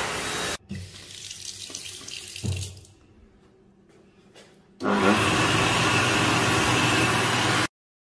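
Levante hand dryer blowing: a steady loud rush of air with a low motor hum, starting suddenly about five seconds in and cutting off sharply near the end. Before it, a brief rush of air from another hand dryer stops abruptly within the first second, followed by a few soft knocks and a quiet stretch.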